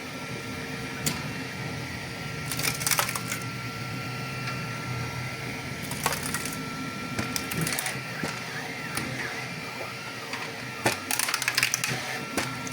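FDM 3D printer running, its stepper motors whining in steady tones that glide briefly up and down as the print head moves. Bunches of sharp clicks and crackles come about two and a half seconds in, around six seconds, and again near the end.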